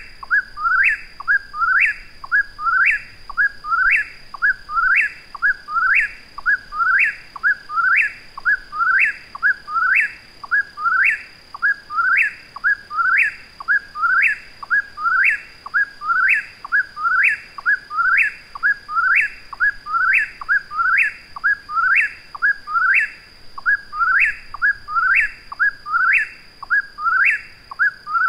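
Eastern whip-poor-will singing its 'whip-poor-will' phrase over and over, about one call a second without a break. A faint steady high tone runs behind it.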